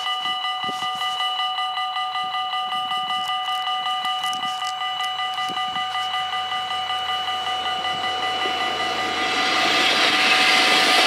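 Dutch level-crossing bells ringing rapidly and steadily. From about nine seconds in, the running noise of an approaching Syntus LINT 41/H diesel railcar swells up beneath them and grows louder.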